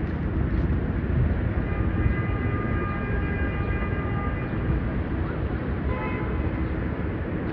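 Steady city traffic rumble with a horn sounding for about three seconds, and a short second blast about six seconds in.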